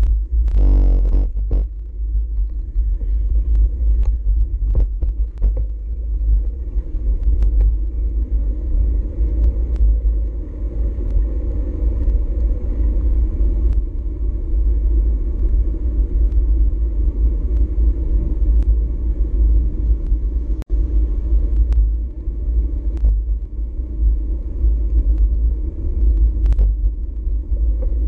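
Wind buffeting a GoPro action camera's microphone on a moving bicycle: steady low wind noise with road and tyre noise. There is a brief louder rush about a second in, and a few small clicks.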